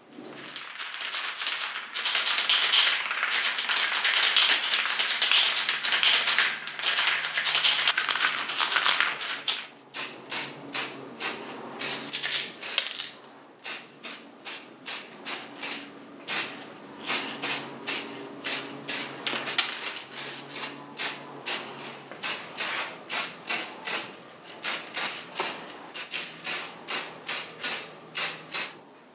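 Aerosol spray paint can spraying: one long continuous hiss for about ten seconds, then a run of short quick bursts, about two a second.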